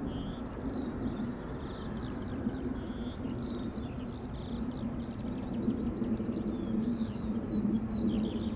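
Distant aircraft engine rumble, steady and slowly growing louder near the end, with small birds chirping over it.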